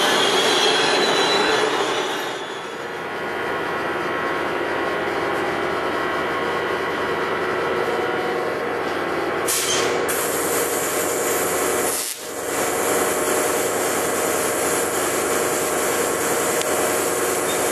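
Bombardier ALP-45DP dual-mode locomotive rolling along the platform and coming to a stand, then standing with a steady mechanical hum in electric mode while its pantograph is lowered for the change to diesel. A short hiss comes about ten seconds in.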